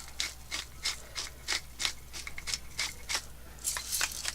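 Peppercorns being ground in a hand-twisted pepper mill: a run of short, gritty scraping strokes, about three a second.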